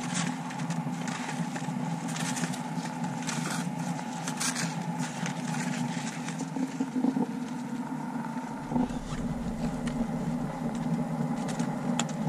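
Skis on climbing skins sliding uphill over firn snow, with scattered crunches of steps and pole plants over a steady rushing noise.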